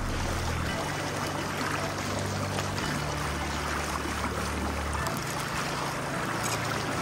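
Steady rushing of river water, with low background music under it whose bass notes change every second or two.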